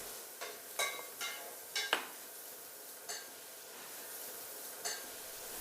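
Cooking utensils clinking against a pan and dishes: about seven sharp metallic clinks, each ringing briefly, spread irregularly over a few seconds above a faint steady hiss.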